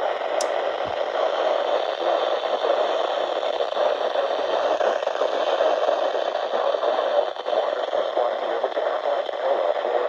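Steady radio static: an even hiss from a radio receiver with no clear signal coming through.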